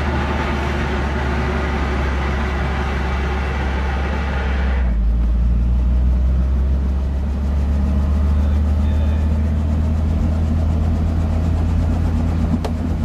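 Robinson R44 helicopter's engine and main rotor running on the ground just after start-up, heard from inside the cabin as a steady low drone. A hissy upper layer drops away abruptly about five seconds in, and a single sharp click comes near the end.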